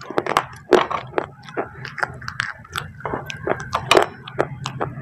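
Baked clay pot pieces being bitten and chewed close to the microphone: a quick, irregular run of sharp, dry crunches.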